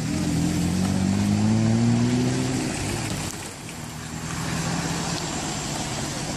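A vehicle engine accelerating, its pitch rising steadily for about two and a half seconds, then running on more quietly at a steady pitch.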